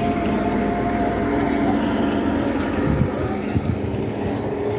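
A motor vehicle's engine running steadily nearby, with a couple of dull thumps about three seconds in.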